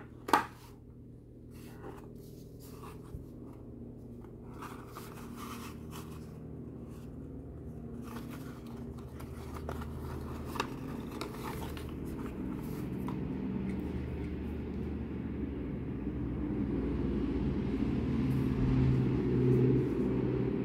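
Cardboard toy box being opened by hand: scattered scrapes and light clicks of the flap and card, with one sharp click just after the start. Under it a steady low hum grows louder through the second half.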